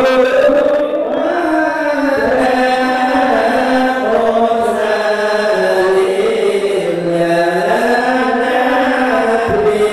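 A group of men chanting devotional Maulid verses in Arabic together in unison, in a slow, drawn-out melody that rises and falls.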